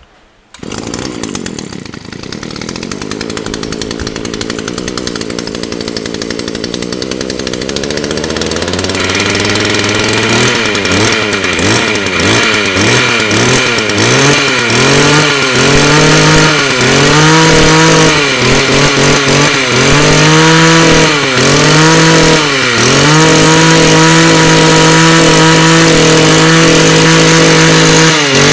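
Mitsubishi TU22 22cc two-stroke brush-cutter engine pull-started, catching right at the start. It runs at a low idle with its pitch slowly creeping up, is revved up and down repeatedly about once a second from roughly a third of the way in, then holds steady at high revs for the last few seconds.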